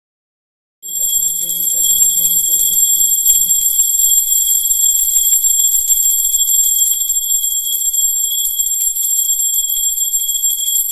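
Small brass puja hand bell (ghanta) rung rapidly and continuously during the aarti, a steady high metallic ringing that starts about a second in.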